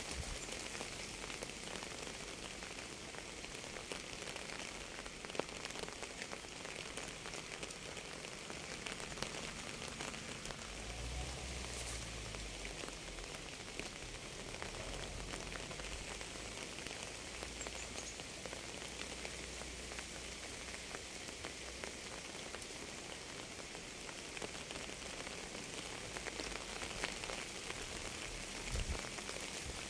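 Steady rain falling: an even hiss of drops, with many small separate drop ticks. A low rumble comes in about ten seconds in and fades out over the next several seconds.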